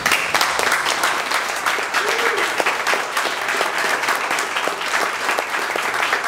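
Audience applauding, the clapping breaking out all at once and holding steady.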